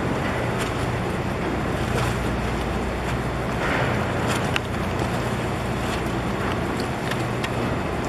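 A boat's engine running with a steady low drone, with water washing and wind noise on the microphone over it.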